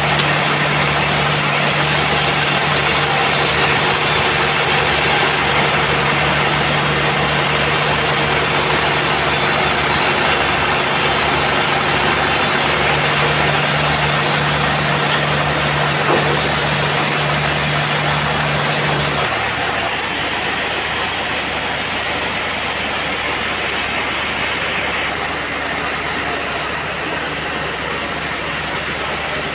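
Band sawmill machinery running with a steady mechanical noise. A steady low hum in it stops about two-thirds of the way through, and the sound eases slightly.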